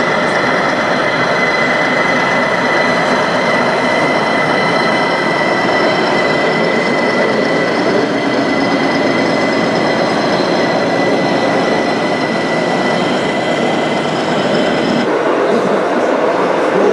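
Radio-controlled model semi-truck running, a steady high-pitched whine over a rumbling noise, which cuts off about fifteen seconds in.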